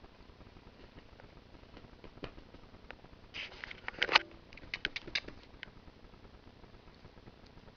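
Close rustling and a quick run of sharp clicks, from about three to five and a half seconds in, as a hand handles something small beside the camera.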